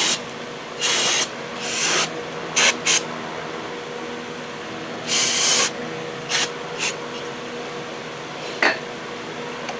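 Aerosol brake cleaner sprayed onto a rear brake caliper bracket in a series of short hissing bursts, about eight of them, the longest lasting around half a second. A faint steady hum sits underneath.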